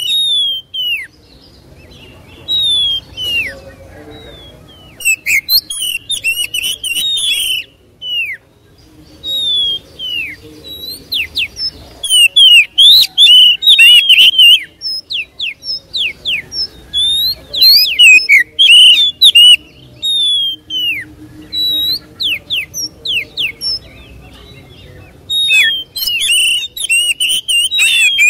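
Oriental magpie-robin in full, persistent song: loud phrases of clear whistles, quick slurred notes and rapid trills, broken by short pauses.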